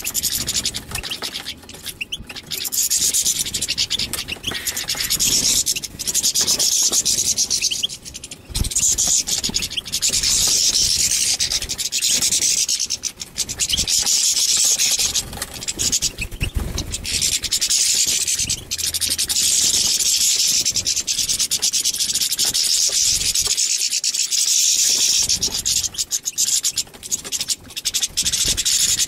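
European goldfinch singing: long runs of rapid, high-pitched twittering, each a few seconds long, broken by short pauses.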